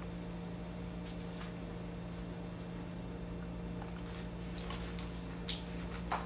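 Steady low hum of room tone with a few faint clicks and taps of medical instruments being picked up from a table, the sharpest clicks near the end.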